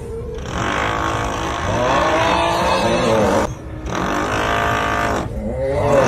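Looped meme snoring sound: a long, drawn-out, wavering 'uuuugh' groan-snore repeated over a steady drilling noise. It breaks off briefly and restarts about three and a half seconds in and again near the end.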